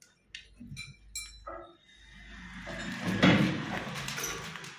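Metal parts of a railway point machine's friction clutch being handled: a few light clinks, then a longer scraping noise that swells and fades as a part that has not seated is worked into place.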